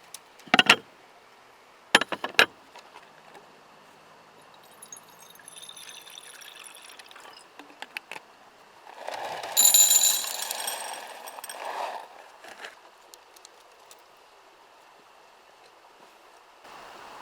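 A few sharp knocks, then metallic jingling and clinking, loudest for a couple of seconds about ten seconds in.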